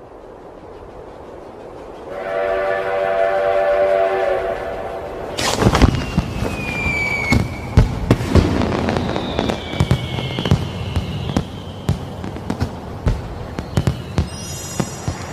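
Sound-effect mix of fireworks: a rising rush, a steady whistle-like chord held for about two seconds, then loud bangs with falling whistles and a long run of crackling pops.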